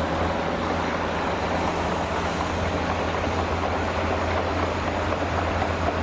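Diesel tipper truck running steadily with its body raised, tipping out a load of sand. A constant low engine hum sits under a rushing noise.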